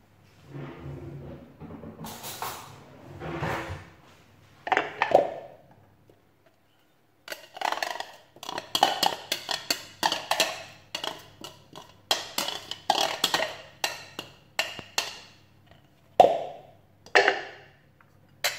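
Plastic bowl and blade of a hand-blender chopper being knocked and tapped while grated carrot is emptied out. Soft handling noise comes first, then from about halfway through a quick run of sharp taps, several a second, ending with a few louder knocks.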